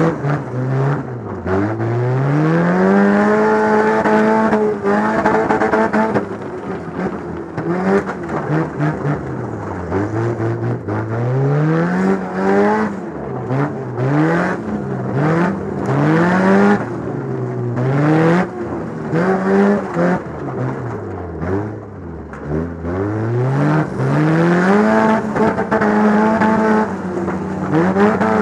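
Demolition derby car's engine revving hard and dropping off over and over, its pitch climbing and falling every couple of seconds, with frequent sharp knocks and bangs.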